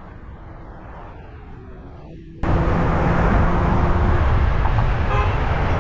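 Outdoor road noise picked up by a cyclist's camera microphone: a quiet low rumble that jumps suddenly, about two and a half seconds in, to a loud, steady rushing noise.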